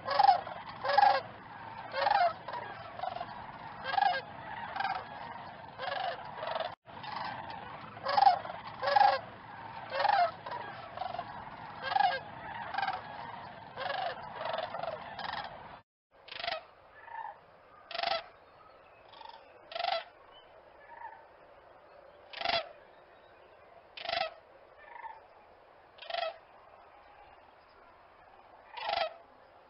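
Cranes calling, a run of short, honking calls repeated over and over. For the first half several birds call close together over a steady hiss; after about sixteen seconds the background drops away and the calls come more sparsely, about one every second or two.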